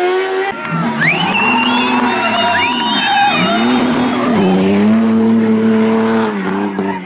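Race car engine revving briefly, then a drifting car sliding with its tyres squealing for a few seconds while its engine is held at steady high revs, falling off near the end.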